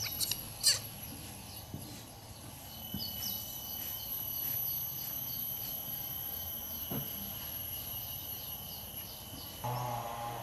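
Insects trilling in the background, with steady high tones and a high chirp repeating about three times a second. A couple of sharp clicks sound just after the start.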